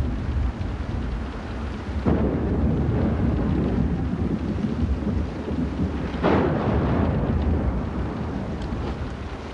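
Hurricane storm on a TV soundtrack: a steady low rumble of rain and storm noise, with two sudden cracks of thunder, one about two seconds in and one about six seconds in, each dying away slowly.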